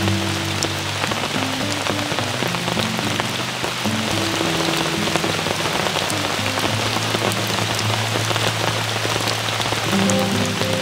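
Steady rain falling, a dense hiss with scattered individual drops, over soft background music of low held notes that shift every second or so.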